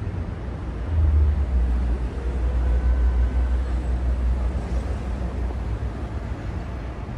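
Low outdoor rumble that swells about a second in and eases off toward the end, with a faint, brief thin tone around three seconds in.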